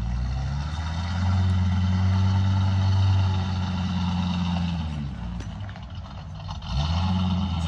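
1999 Ford F53 motorhome's 6.8 L V10 engine running at low speed as the RV moves slowly on its freshly rebuilt 4R100 transmission. The engine note swells about a second in, eases off and dips in pitch near the end, then picks up again.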